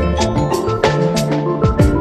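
Background music with a drum beat, held bass notes and a bright melodic line.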